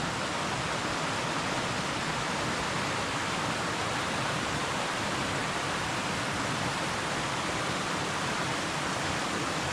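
Mountain stream rushing over cascades, a steady, unbroken rush of water; the stream is running high after heavy rain.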